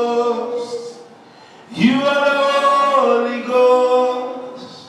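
A man singing a slow worship chant into a microphone in long, held notes, with no instruments heard. One phrase fades out, and a new one begins about two seconds in.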